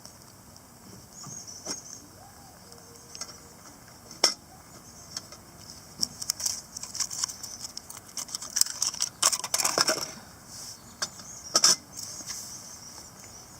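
Scattered clicks, knocks and light clatter of small objects being handled, busiest in the second half, over steady high chirping of insects.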